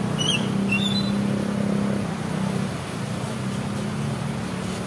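Rushing floodwater in a swollen concrete-walled creek, under the steady low hum of a motor vehicle engine. Two short high chirps sound within the first second.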